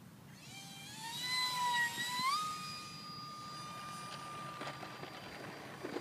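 Radio-controlled model airliner's ducted-fan motors whining as it flies past. The pitch climbs slowly, then steps up sharply a little over two seconds in, holds steady and fades. Light rattling near the end as the model rolls on the runway.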